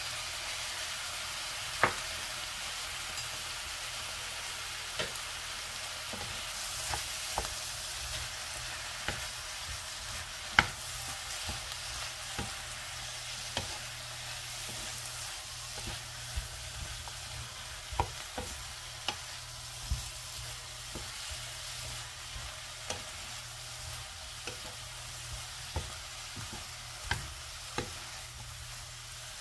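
Sliced shiitake mushrooms and onion sizzling steadily in a frying pan as a wooden spatula stirs and tosses them, its edge tapping the pan at irregular moments, loudest about two seconds in and about ten seconds in.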